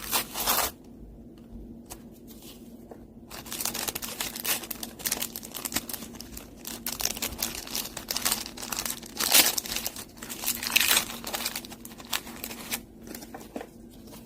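Plastic wrapper of a small collectible sticker packet being torn open and crinkled by hand: a short rip at the start, then several seconds of rustling and tearing that stop shortly before the end.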